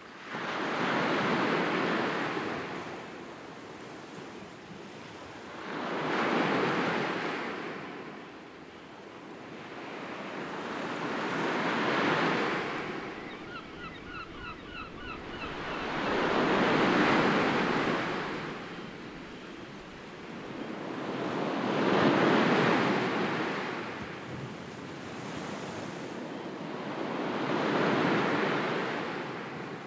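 Sea waves washing in and drawing back in slow, even swells, about one every five seconds, six in all. A short run of faint high chirps sounds about halfway through.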